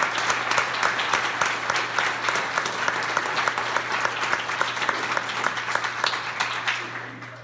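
Congregation applauding, many hands clapping together, dying away near the end.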